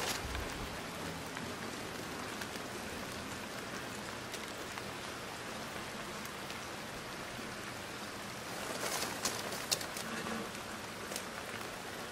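Steady, even hiss of background noise, with a faint click at the start and a short spell of light ticks and rustling about nine seconds in.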